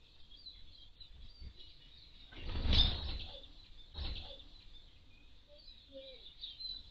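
Eurasian siskins and redpolls twittering softly and continually with short, high calls. A loud rush of noise comes about two and a half seconds in, with a shorter one near four seconds.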